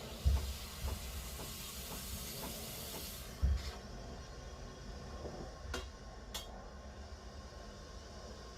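Breville Barista Express steam wand releasing a hiss of steam for about three seconds. Low knocks come near the start and as the hiss stops, and two sharp clicks follow a couple of seconds later.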